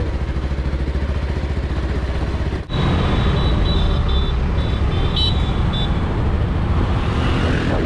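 Bajaj Pulsar motorcycle engine running while riding, heard from the rider's seat. There is a cut about two and a half seconds in, after which the engine is a little louder and short high beeps sound several times.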